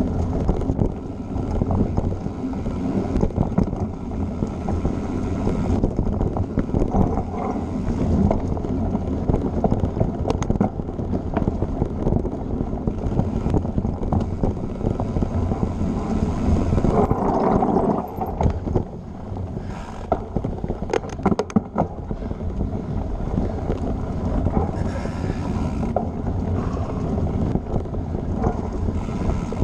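Mountain bike riding fast over a dirt singletrack trail: tyres rolling over packed dirt and leaves in a steady rumble, with frequent knocks and rattles from bumps in the trail.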